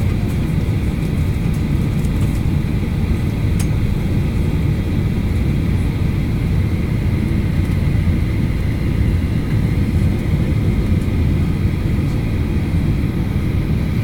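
Jet airliner taxiing, heard from inside the cabin: the engines run at low taxi power as a steady low rumble with a faint, even whine above it.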